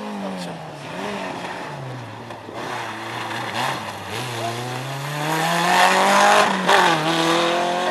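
Rally car engine accelerating hard up the road, its pitch climbing through the revs with one gear change near the end, growing louder as it approaches.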